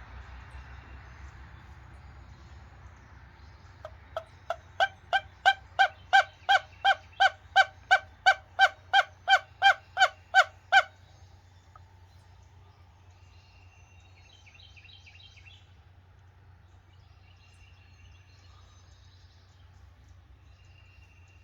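A loud series of about twenty evenly spaced turkey yelps, about three a second, building in volume over the first few and then stopping abruptly about eleven seconds in. Faint small-bird chirps follow.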